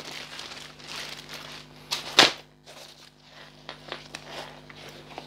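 Thin plastic packaging bag crinkling and rustling as a backpack is pulled out of it and handled, with one louder, sharper rustle about two seconds in.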